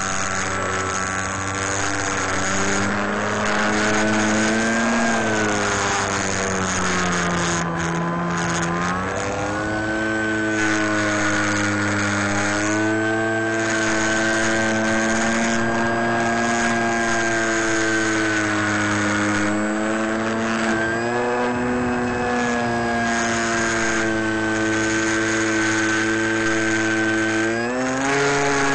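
Electric motor and propeller of a small radio-controlled FPV airplane running under power: a steady whine whose pitch rises and falls with the throttle, dipping at about eight seconds and climbing sharply near the end as the motor current rises.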